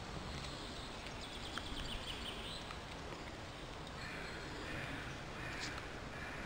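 Outdoor ambience with small birds singing in the background: a fast trill of repeated high notes lasting about two seconds, then a few shorter chirps near the end, over a steady hiss.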